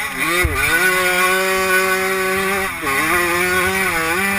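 85cc two-stroke motocross bike engine under hard throttle, heard from the rider's helmet. It revs up about half a second in, holds a high steady pitch for about two seconds, drops briefly near the three-second mark, then climbs and wavers again.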